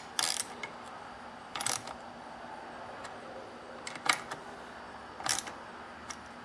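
Steel socket and extension clinking against the nuts and studs of an outboard water pump housing as the nuts are snugged down: four or five separate short metallic clinks a second or so apart.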